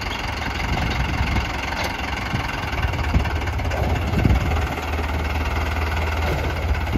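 Mahindra Arjun 605 tractor's diesel engine running steadily at low revs while it pulls a trolley loaded with pipes through soft mud.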